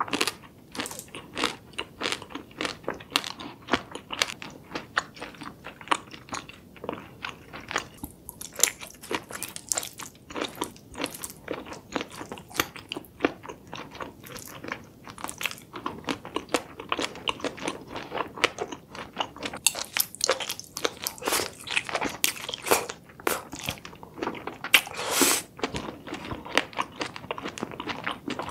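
A person eating spicy seafood close to the microphone: continuous wet chewing with many quick, sharp crunches and bites, loudest about 25 seconds in.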